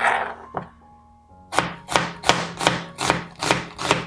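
Chef's knife slicing a red onion on a plastic cutting board. After a few single cuts and a pause of about a second, the knife comes down on the board in a steady run of strikes, about three a second.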